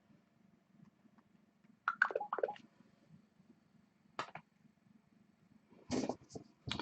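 Faint steady low hum of a quiet room, broken by a short cluster of clicks and knocks about two seconds in, a single click a little after four seconds, and a brief rustle near the end.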